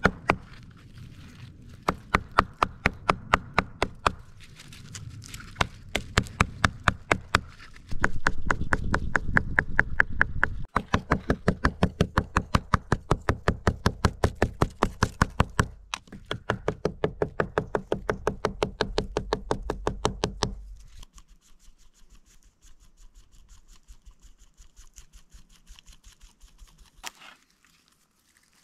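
Hand-held stone pounding long green leaves against a weathered dead log: a rapid run of sharp knocks, about four a second, with a few short pauses, beating the leaves to free their fibres. The pounding stops about two-thirds of the way through, leaving only faint handling of the fibres as they are twisted.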